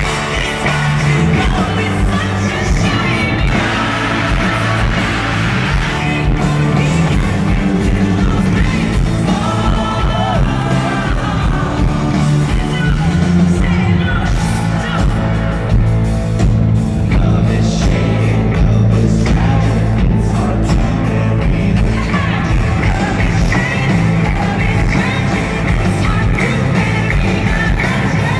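Live country-rock band playing loudly: a female lead singer with electric guitars behind her.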